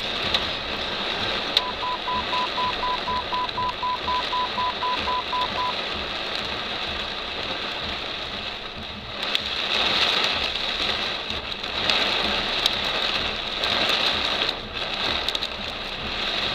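A steady rushing noise that swells louder a few times in the second half. A run of rapid electronic beeps at one pitch, about four a second, starts about a second and a half in and lasts roughly four seconds.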